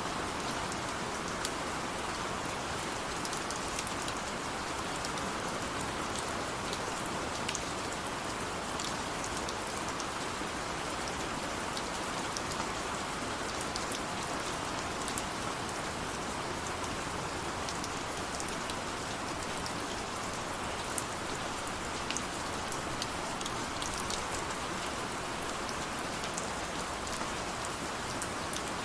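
Steady rain falling, a continuous hiss with scattered sharp drop ticks.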